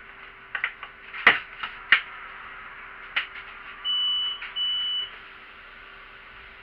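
A few sharp clicks and knocks in a city bus, then two high electronic beeps of about half a second each, close together, over a faint steady hum.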